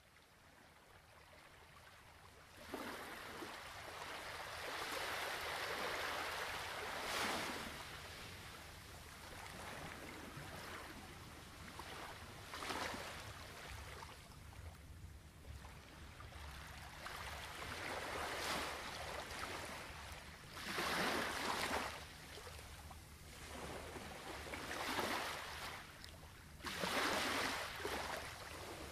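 Ocean waves washing ashore. The sound fades in over the first few seconds, then surges and recedes every few seconds, over a low steady hum.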